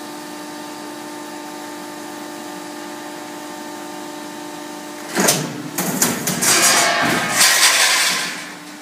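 A hydraulic guillotine sheet-metal shear's motor runs with a steady hum. About five seconds in, a loud, rough noise comes in several surges for about three seconds, then fades.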